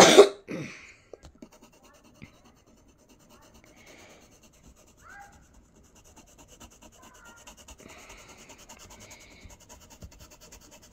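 Graphite pencil scratching on paper in quick, short shading strokes, faint at first and steadier from about six seconds in. The sound opens with a short, loud burst of noise.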